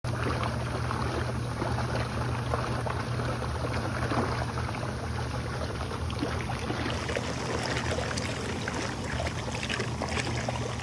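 Hot tub jets running: water churning and bubbling over a steady low hum from the jet pump.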